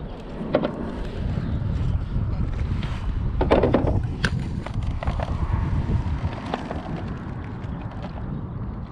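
Wind rumbling on the microphone, with scattered knocks and a short louder rustle about three and a half seconds in.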